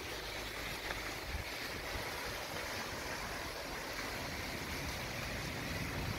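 Heavy rain pouring steadily, an even hiss of rainfall on the street and rooftops.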